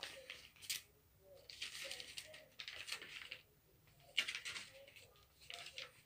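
Pages of a handmade paper junk journal being turned by hand: several soft paper swishes with a couple of light taps as the pages fall flat.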